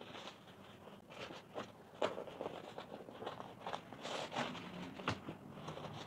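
Faint rustling and brushing of a bag's fabric lining and leather body being handled and fitted together by hand, with scattered light clicks and taps.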